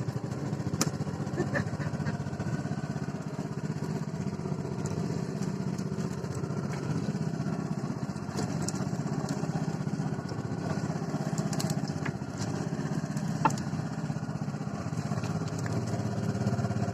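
A small engine running steadily at an even speed, with a few light clicks over it.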